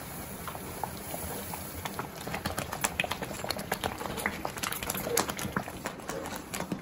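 Coriander-paste water boiling in a frying pan. Bubbles pop and spit in quick, irregular clicks that come thicker from about two seconds in.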